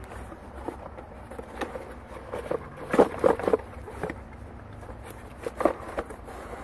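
Cardboard box and packaging being handled during an unboxing: scattered rustles and light knocks, with a burst of louder rustling about halfway through and another sharp one later.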